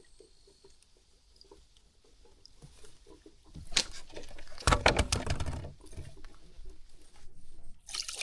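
A small carp being reeled in and landed, with water splashing and handling noise. The loudest stretch comes about four to six seconds in, with another burst near the end, after faint light ticking in the first few seconds.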